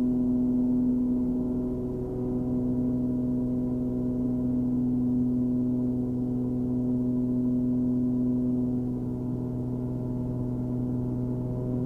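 Steady, even drone of a Cessna 340's twin turbocharged six-cylinder piston engines and propellers in flight, heard inside the cabin.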